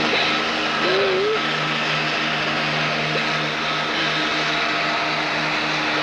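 Steady mechanical drone of a salvage crane barge's machinery as it lifts a sunken battleship's gun turret, a constant low hum over a hiss. A short wavering pitched call rises and falls about a second in.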